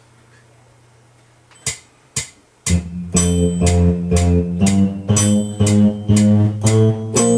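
Two sharp clicks half a second apart counting in a take, then a band starts playing a song about two and a half seconds in: a bass line under chords, notes struck on a steady beat of about two a second.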